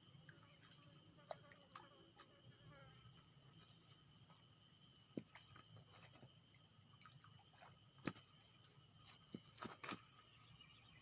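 Near silence: faint outdoor ambience with a few scattered small clicks and ticks.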